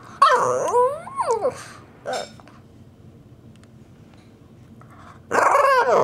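Shih Tzu making drawn-out, wavering vocal noises, its pitch sliding up and down: one long call, a short one, then a pause before another long call begins near the end. These are the demanding noises the dog makes when it wants to play.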